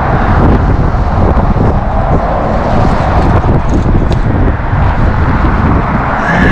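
Loud wind buffeting the microphone over a steady roar of road traffic.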